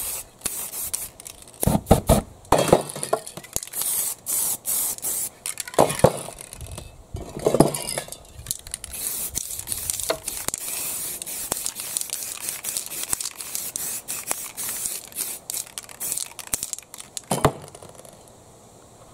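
Aerosol spray-paint can hissing in repeated bursts a second or two long, with short rubbing and handling noises of hands on the paper in between.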